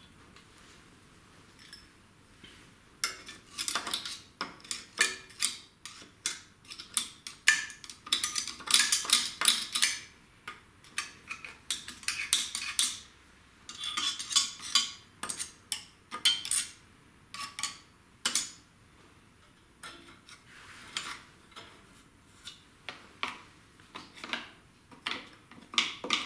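A screwdriver clicking, tapping and scraping against the metal parts of a Honda GCV160 lawnmower engine: a long run of sharp metallic clinks, busiest in the first half and thinning out towards the end.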